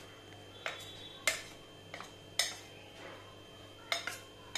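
A metal spoon clinking lightly against a small stainless-steel bowl while it turns a ball in thin batter: about seven short, irregularly spaced clinks.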